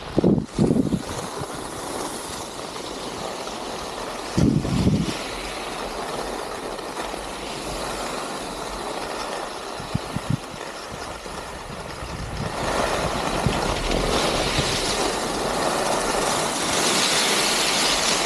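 Skis running on snow with wind rushing over the microphone: a steady hiss that grows louder about twelve seconds in.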